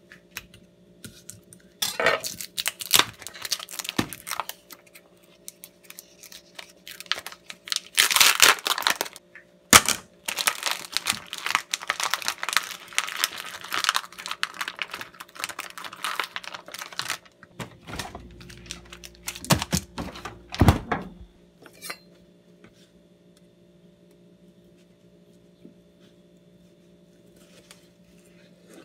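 Plastic sausage packaging being torn open and crinkled by hand, a long stretch of rustling and tearing, followed by a few knocks of the sausages and knife on a plastic cutting board.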